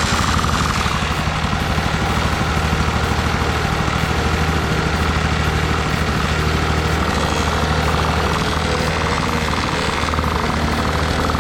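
Pocket bike's small two-stroke engine running steadily with a rapid, buzzing exhaust beat.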